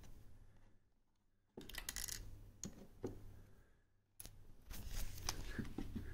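Faint scattered clicks and short rustles of a plastic trail camera being handled and its microSD card pulled out, broken by two brief spells of silence and growing busier near the end.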